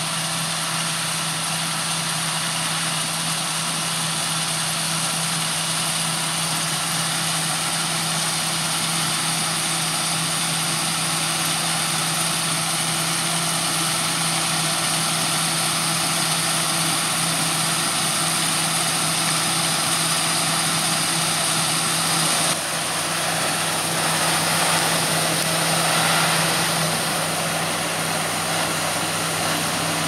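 John Deere W550 combine harvester running at work in barley, its engine and threshing gear giving a steady drone, with the unloading auger discharging grain into a trailer and a John Deere tractor running alongside. The drone dips briefly about three-quarters of the way through, then swells a little louder for a few seconds.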